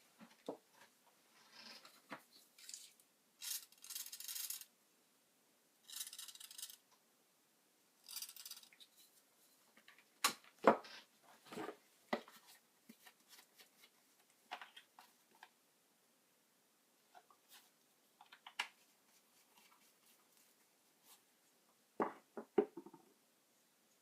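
Small handling noises: three short rasping bursts in the first nine seconds, then scattered clicks and knocks, the sharpest about ten and a half seconds in and a cluster near the end.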